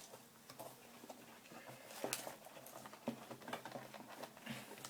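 Faint scattered rustling and tapping of cardboard and paper as a manual stuck inside a box is tugged at, with a sharper tap about two seconds in.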